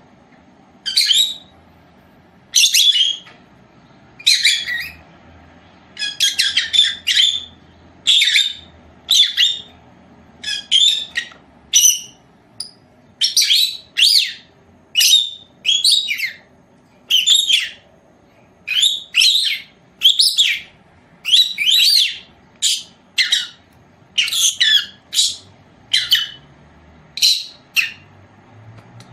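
Lovebirds calling: a steady run of short, high-pitched chirping calls, roughly one a second, some in quick doubles.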